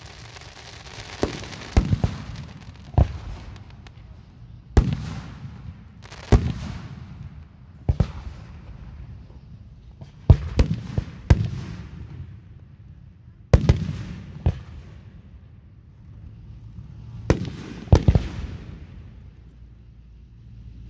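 Aerial fireworks display: about a dozen sharp shell bursts at uneven intervals, each followed by a trailing crackle that fades over a second or two.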